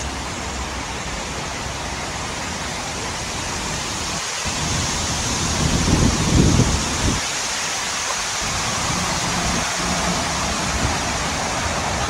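Steady outdoor rushing noise with no distinct events, swelling into a louder low rumble from about four and a half to seven seconds in.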